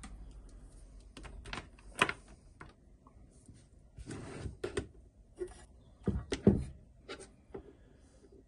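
Scattered clicks, knocks and a short scraping rustle as a battery pack and the signal lamp's housing are handled and fitted together. There is a sharp click about two seconds in, and the loudest knocks come near six and a half seconds.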